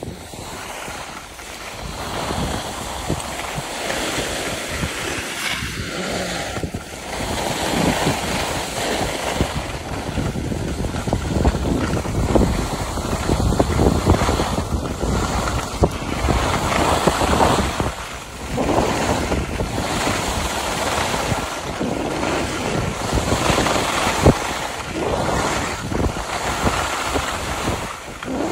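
Skis sliding and scraping over packed, groomed snow, a rushing noise that swells and fades again every few seconds, with wind buffeting the microphone.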